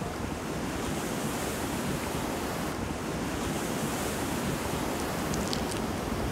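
Steady wind blowing across the microphone, mixed with choppy water washing below the pier.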